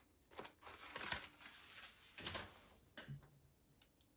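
Thin plastic film or sticker backing crinkling as it is handled, in a few short rustling bursts, then a light click about three seconds in.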